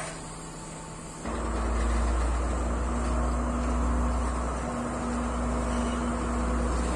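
Train's low rumble and engine drone: quiet at first, then coming up abruptly about a second in and holding steady.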